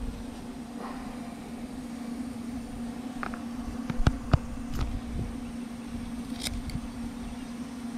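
Scissors snipping through a dead rattlesnake's skin: a few sharp clicks around the middle, the loudest about four and a half seconds in, over a steady low mechanical hum.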